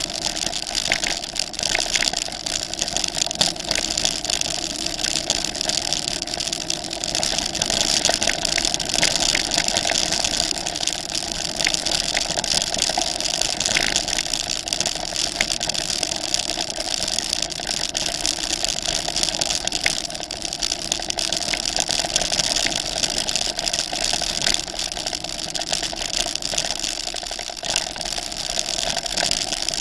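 Steady mechanical running noise of a handlebar-steered vehicle riding a dirt forest track, with frequent small rattles and clicks from the rough ground.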